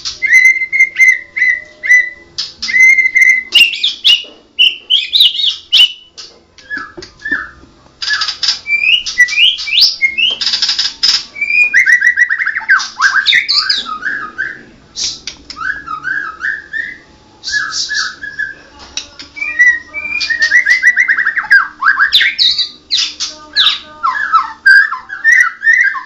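White-rumped shama singing full song: a long, loud run of varied, fluty whistled phrases with rising and falling slurs, broken by a few short harsh, rasping notes.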